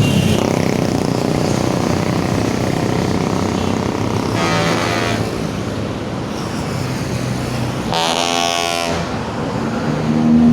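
Highway traffic with buses and trucks passing. A short horn blast comes about four and a half seconds in, a louder horn blast lasting about a second comes around eight seconds in, and a deep, low horn starts near the end.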